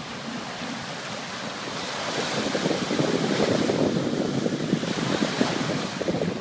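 Small ocean waves breaking and washing up the sand, with wind buffeting the microphone; both grow louder about two seconds in.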